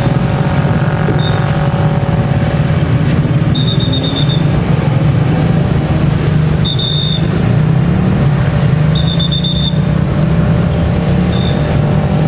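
Low, steady rumble of motorcycle engines and road traffic at a railway level crossing. A short, high beep sounds every two to three seconds.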